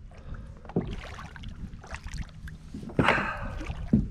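Hobie Compass plastic kayak moving through water, with water sloshing against the hull and a few knocks, the loudest about three seconds in.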